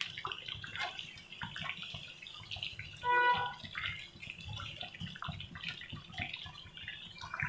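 Hara bhara kababs sizzling and crackling in hot oil in a frying pan as they are lifted out, done golden on both sides. A brief pitched tone, the loudest thing here, sounds about three seconds in.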